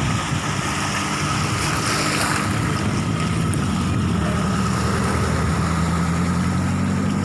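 An engine running steadily with a low, even hum, over a wash of water noise.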